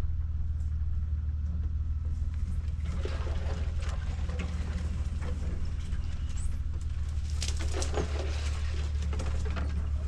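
Brush and branches scraping and scratching along the body of a Honda Ridgeline as it pushes through a narrow trail, over the truck's low steady drone. The scraping starts a few seconds in, comes in repeated scratchy bursts and is strongest near the end; it is the sound of the paint being scratched by the brush.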